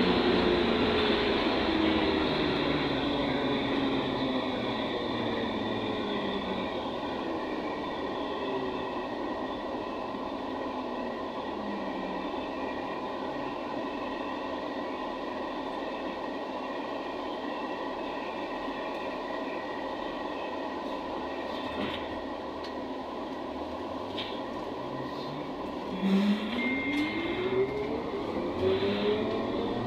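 Cabin sound of a ZiU-682G trolleybus on the move. The traction motor's whine falls in pitch as the trolleybus slows over the first several seconds, then gives way to steady rolling and body noise. About 26 seconds in, the whine rises again as it pulls away and speeds up.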